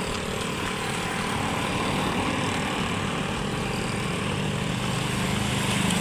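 A vehicle's engine running steadily as it drives along a road, with road and wind noise; the engine grows a little louder near the end.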